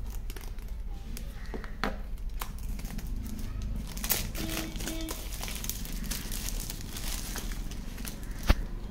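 Plastic shrink-wrap crinkling and tearing in irregular crackles as it is peeled off a smartphone box, with one sharp tap near the end.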